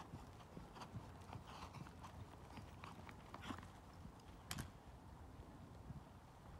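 Faint hoofbeats of a horse on a sand arena, slowing and stopping as the horse comes to a halt. One sharper click about four and a half seconds in.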